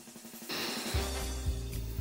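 Background music: a quiet gap at first, then a track coming in about half a second in, with a drum beat from about a second in.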